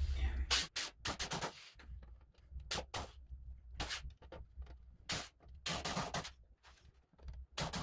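Corded screw gun driving wood screws up into the underside of a wooden table, run in a series of short bursts with pauses between.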